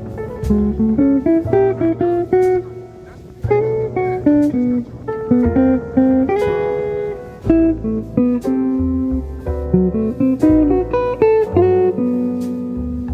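Background music: a plucked guitar melody moving note to note over sustained low bass notes, with light percussion ticks.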